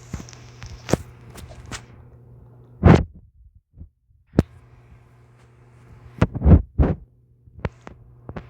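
A person coughing close to the microphone: one loud cough about three seconds in and a quick run of three coughs a little past six seconds, with lighter thuds between. A steady low hum runs underneath.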